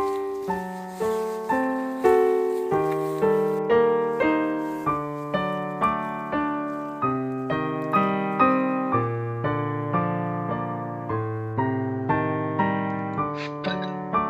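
Solo piano music: a steady melody over chords, notes struck at an even pace of about two a second.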